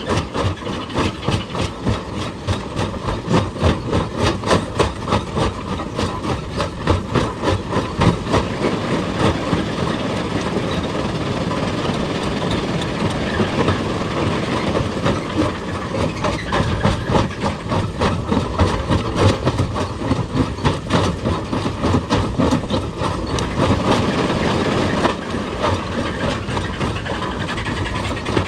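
Heavy excavator working rock in a quarry: a steady machine noise with a dense, uneven clatter of repeated metal-on-stone impacts.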